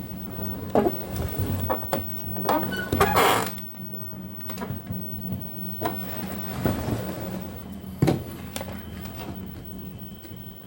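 Irregular knocks, clicks and scrapes of things being handled on a workbench, with a longer rustling scrape about three seconds in and a steady low hum underneath.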